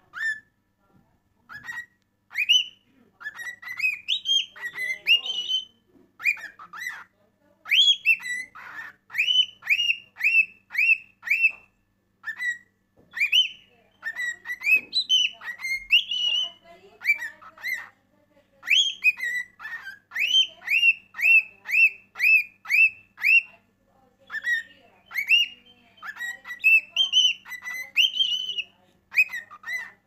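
A cockatiel singing a whistled song: phrases of clear, sliding whistle notes, some rising and some falling, often with quick runs of five or six near-identical notes, broken by short pauses.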